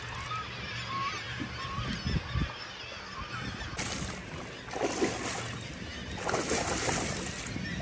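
Hooked lingcod thrashing and splashing at the water's surface, starting about four seconds in, with a few louder splashes. Before that, a few short honking bird calls over a low wash of water.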